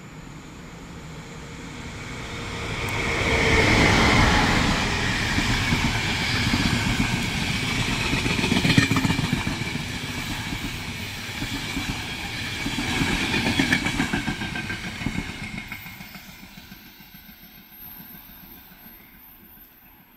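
EuroCity passenger train passing through the station without stopping: wheels clattering over the rails and the coaches rushing by. It builds over the first few seconds, stays loud for about ten seconds, then fades as the train runs away.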